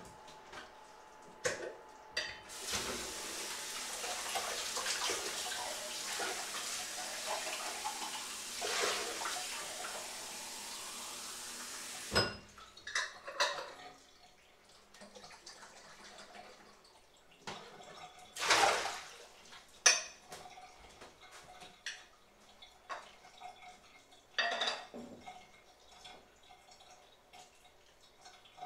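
Kitchen tap running for about nine seconds, then shut off abruptly, followed by scattered clinks, knocks and clatter of pots and utensils.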